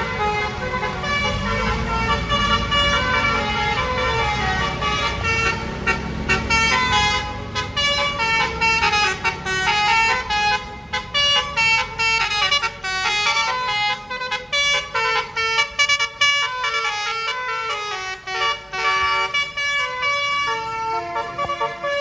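Indonesian 'telolet' basuri multi-tone bus horn playing a tune, a quick run of stepped notes going up and down. A bus engine rumbles low beneath it in the first half.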